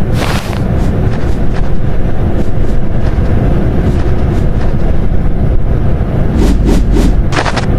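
A loud, steady low rumbling noise, with short hissing bursts just after the start and again near the end.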